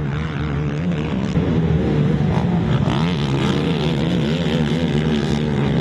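Several racing ATV engines revving up and down together as a pack of quads races around a motocross track.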